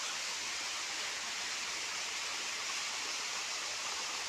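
Low, shallow stream trickling over rocks, a steady even hiss with no distinct events.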